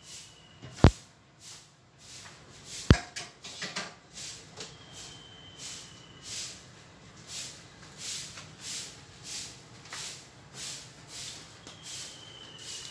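Two sharp clicks as hands work at the fittings of a popcorn machine, then footsteps shuffling over a tiled floor at a walking pace, about one and a half steps a second.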